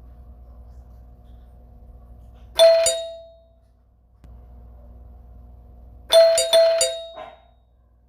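Doorbell ringing: one ding that rings out, then a quick run of four or five dings a few seconds later, over a steady hum.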